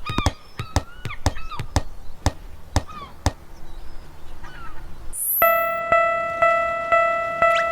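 Japanese railroad crossing alarm starting about five seconds in, a steady electronic ding repeating about twice a second. Before it, a run of quick knocks and short calls that bend in pitch fades out, and a brief high swoosh comes just before the alarm starts.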